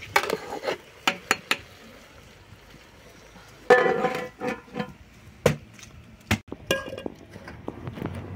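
Metal cookware clinking: a steel ladle knocks against a steel cooking pot in a run of sharp clinks. About four seconds in comes one loud ringing metal clang, followed by a few more knocks.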